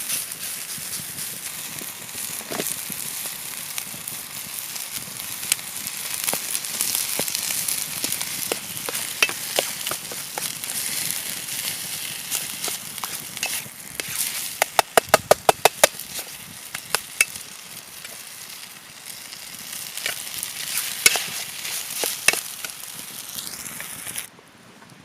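Food sizzling as it fries over a campfire, dotted with crackling pops. About two-thirds of the way through comes a quick run of about ten taps, and the sizzle cuts off abruptly shortly before the end.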